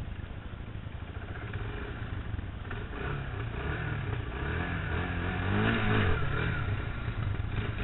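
Kawasaki Bayou 220 ATV's single-cylinder four-stroke engine running under way, revving up and getting louder from about halfway through.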